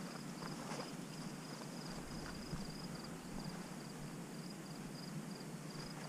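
An insect chirping in a high, evenly repeating pulse over faint outdoor hiss, with a few light clicks in the first second.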